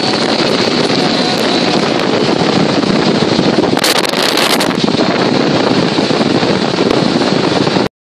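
Wind rushing over the microphone and road noise from a moving car, a steady rumbling hiss, with a brief louder gust about four seconds in. It cuts off abruptly near the end.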